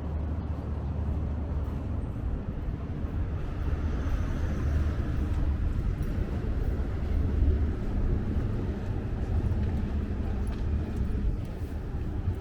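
Outdoor city street ambience with a fluctuating low rumble of traffic and wind, and a faint hum that rises for a couple of seconds about four seconds in.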